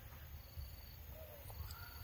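Faint forest ambience: short gliding animal calls in the background, one about a second in and another starting near the end, over a low rumble.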